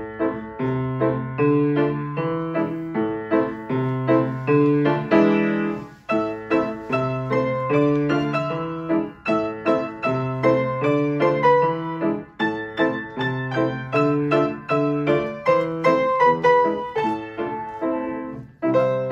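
Grand piano played four-hands in a lively march. It begins with a chord, keeps a steady beat over repeated bass notes, and breaks briefly between phrases.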